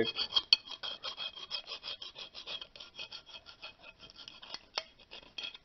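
A hand-held Sawzall blade scraping rust out of the pad slide channels of a brake caliper bracket: metal rasping on metal in rapid, short back-and-forth strokes.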